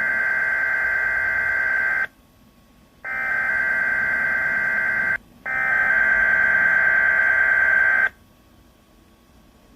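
Emergency alert SAME header on weather radio: three bursts of digital data tones, each about two and a half seconds long, separated by pauses of about a second. The bursts carry the coded alert data and mark the start of an alert broadcast.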